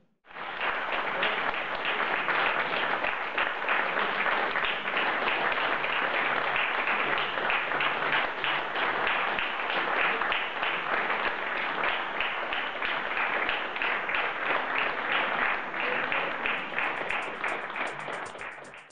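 Audience applauding: dense, steady clapping from many hands, fading out near the end.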